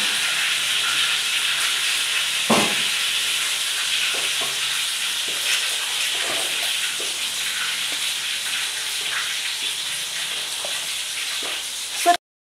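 Steady sizzling hiss of oil frying, with small clicks and rustles of banana leaves and a bamboo basket being handled and a sharper knock about two and a half seconds in. The sound cuts off suddenly just before the end.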